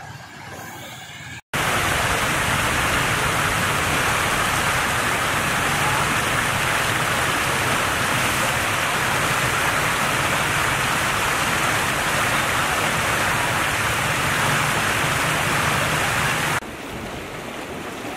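Turbulent floodwater pouring over a road edge and churning through rapids: a loud, steady rush of water that starts and stops abruptly.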